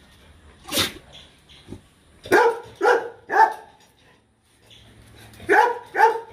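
Dog barking in two bursts: three quick barks about two seconds in, then two more near the end, after a short sharp sound just under a second in.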